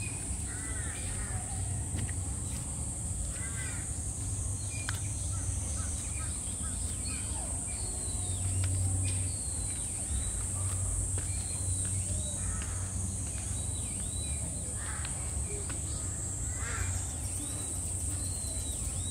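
Repeated harsh, raspy animal calls and short high chirps that fall in pitch, scattered through the whole stretch, over a steady high hiss and a low hum.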